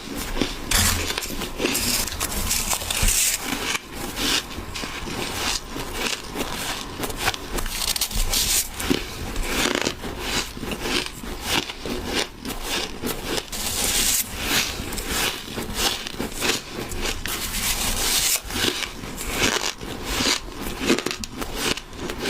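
Ice being bitten and chewed close to the microphone: a steady run of crisp crunches and crackles.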